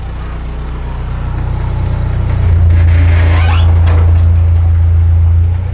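Narrowboat's diesel engine running steadily, then revved up about two and a half seconds in and held high for about three seconds before easing back. A brief rushing hiss comes partway through the revving.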